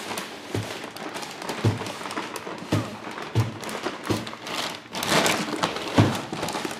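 Plastic bag crinkling and rustling as a flat-screen TV is pulled up out of its cardboard box, with several soft, dull thumps of the set and its foam packing knocking against the box.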